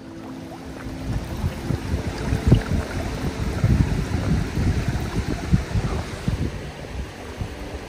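Shallow water lapping and rippling over gravel close to the microphone, with irregular low splashes and knocks.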